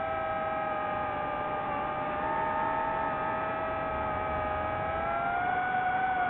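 DJI FPV drone's motors and propellers whining steadily, the pitch dipping slightly and then rising again near the end.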